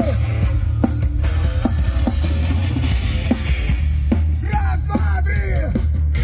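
Loud rock music with bass, drums, guitar and a singing voice.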